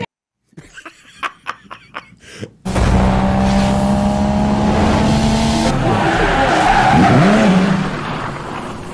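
A produced car sound effect: about two seconds of quick clicks, then a loud tyre squeal with a car engine that starts suddenly, swoops in pitch and fades out near the end.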